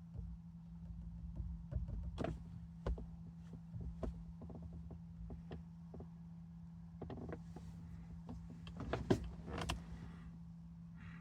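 Sony 9500ES audio fault: a steady low hum with irregular clicks and crackles over it, thickening into short bursts of crackling about seven seconds and nine to ten seconds in.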